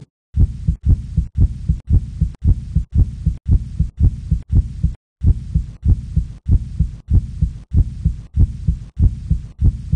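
Human heartbeat sounds: a steady run of low thumps, about two and a half a second, the lub-dub of the heart valves closing. The rhythm breaks off briefly about halfway, then picks up again.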